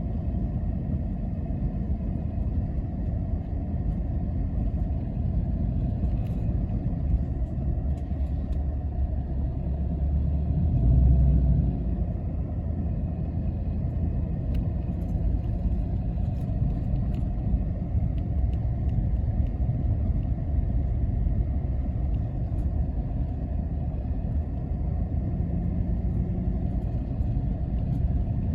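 Quad (ATV) engine running steadily while riding, with a low rumble throughout and a louder swell about eleven seconds in.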